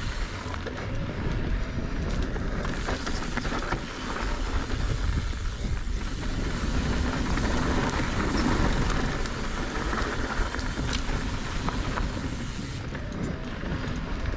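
Mountain bike rolling down a steep, loose dirt trail: tyres crunching and sliding over loose dirt with frequent rattles and clicks from the bike, under a steady rumble of wind on the microphone.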